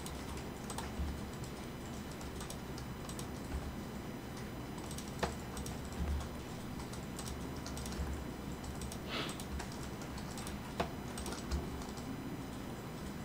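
Irregular light clicks of a computer keyboard and mouse, a few of them sharper, over a steady low background rumble.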